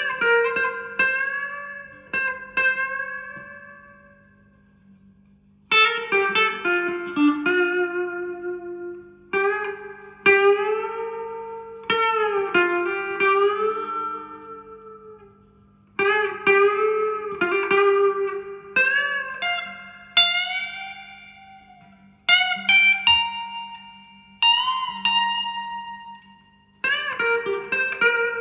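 Electric guitar (1983 Squier JV Telecaster) played through a 1963 Selmer Thunderbird Fifty valve amp with 1970s Celestion Greenback speakers. It plays short phrases of picked notes with string bends, each phrase left to ring and die away before the next, over a faint steady amp hum.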